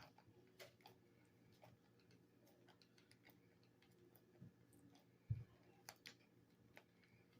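Faint scattered clicks and light taps of a precision screwdriver and small screws being worked into a plastic vacuum housing, with one louder low knock about five seconds in.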